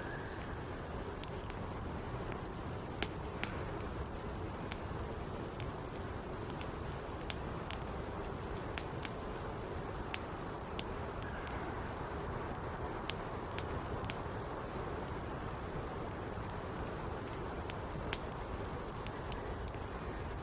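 Campfire burning: a steady rush of noise with sharp crackles and pops at irregular intervals.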